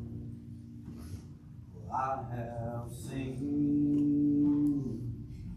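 Slow music with long held notes: a short pitched phrase, sung or played, about two seconds in, then one long steady note near the middle.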